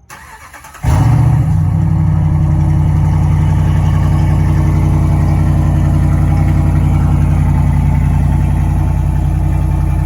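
An engine or motor starts suddenly about a second in and runs loud and steady at one constant low pitch, without revving.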